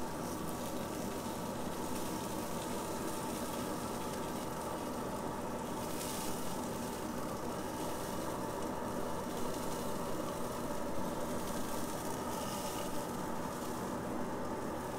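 Steady sizzling hiss from a charcoal kettle grill with its lid open as a whole beer can chicken cooks over the coals, with a faint steady hum underneath.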